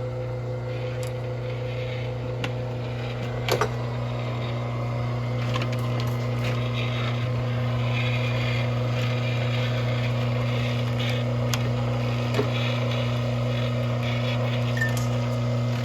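A steady low mechanical hum with a hiss that grows a little louder after about five seconds, broken by a few sharp clicks and knocks, the loudest a double click about three and a half seconds in.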